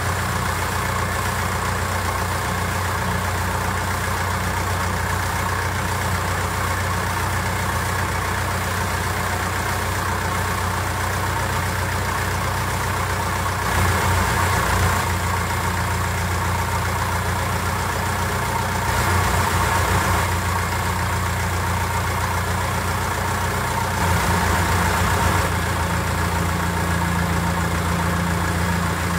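Long-tail boat engine running steadily with a low drone and a rushing hiss over it, rising briefly in level three times.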